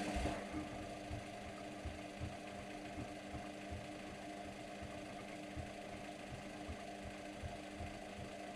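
Luxor WM 1042 washing machine's motor running steadily with a hum, turning the drum, with low knocks about twice a second.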